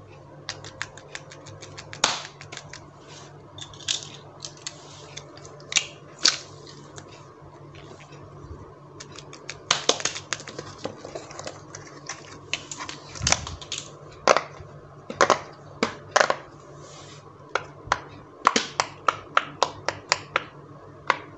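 Plastic fidget toys being handled, giving irregular sharp clicks and pops, sometimes several in quick succession.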